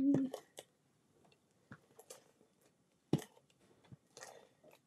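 Card stock and paper being handled and pressed into place while a cream panel is glued inside a card: sparse light taps and clicks, the loudest about three seconds in, and a short soft paper rustle near the end.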